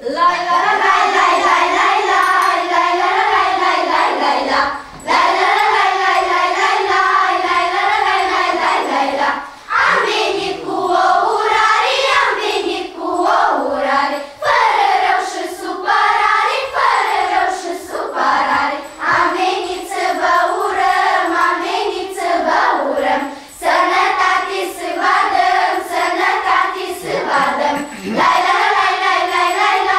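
A children's vocal ensemble singing a Romanian carol (colind) together, the singing starting right at the beginning with a few short breaks between phrases.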